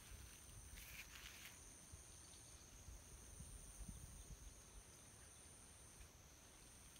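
Near silence: faint rural outdoor ambience with a steady high-pitched insect drone, a low rumble underneath and a brief rustle about a second in.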